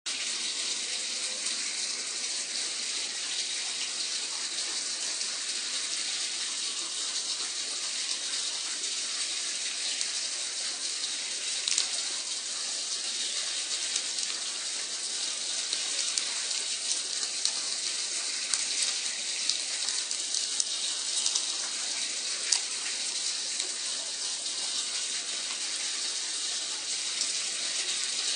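Water swirling in a whirlpool vortex, a steady high-pitched rushing hiss, with a few brief faint clicks.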